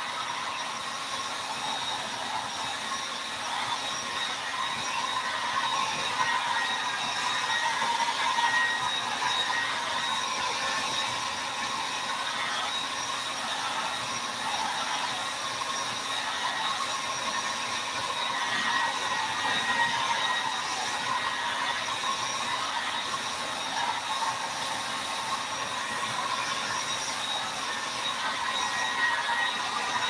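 Handheld hair dryer running on its high setting: a steady rush of air with a motor whine, swelling and fading slightly as it is swept over the paper.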